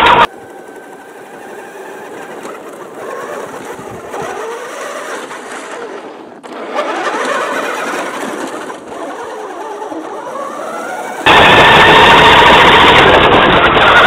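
Remote-control 1/6-scale Opel Blitz model truck's drive motor and gears whining, the pitch rising and falling as the truck speeds up and slows down. About eleven seconds in it turns suddenly much louder and closer, heard from on board the truck.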